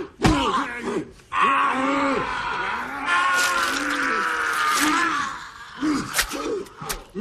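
Men groaning and grunting with strain while grappling in a headlock, with one long, drawn-out strangled groan through the middle. A couple of sharp impacts come near the end.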